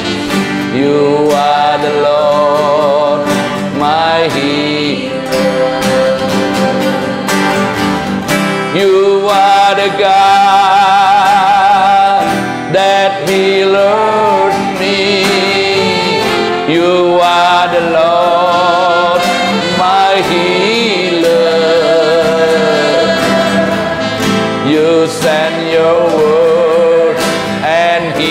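Praise-and-worship music: a singing voice holding long, wavering notes with vibrato over band accompaniment, with no clear words.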